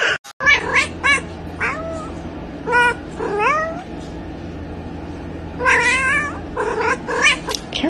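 A domestic cat meowing over and over in short calls, some sliding upward in pitch, with a quick run of several calls about six seconds in.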